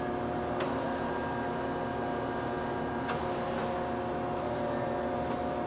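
Marvel 81A vertical band saw running in its automatic cycle: a steady machine hum holding several even tones, with a sharp click about half a second in and another click with a brief hiss about three seconds in.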